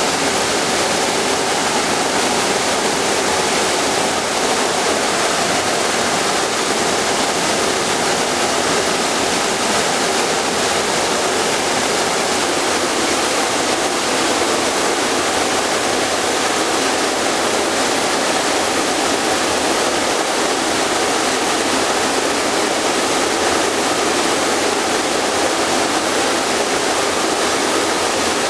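Steady, unbroken rushing hiss of industrial machinery running, with a faint steady hum underneath.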